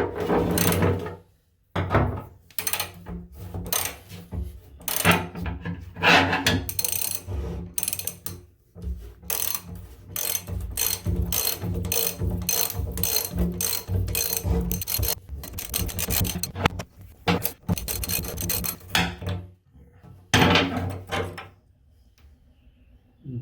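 Hand tool working the old bathtub drain loose, with rapid repeated rasping and ratcheting strokes at two to three a second, stopping about 21 seconds in.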